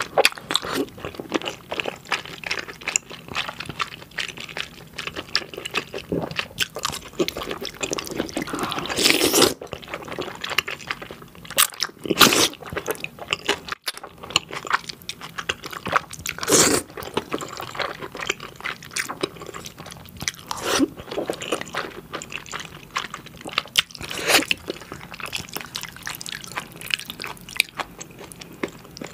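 A person eating wide Korean glass noodles (dangmyeon) in a spicy sauce: wet chewing and smacking throughout, with a louder slurp of the noodles every few seconds, about five in all.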